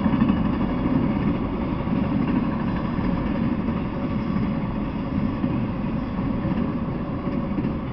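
A freight train of enclosed autorack cars rolling past on the track, its wheels on the rails making a steady, loud rumble that eases slightly near the end.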